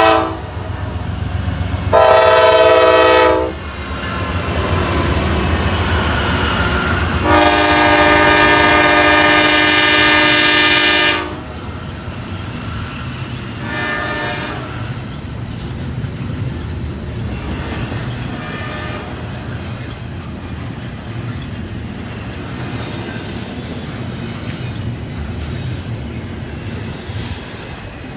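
Train air horn sounding a string of blasts: a short one ending just as it begins, another lasting about a second and a half, a long blast of about four seconds, then a short fainter one. The steady rumble and clickety-clack of the passing train runs underneath.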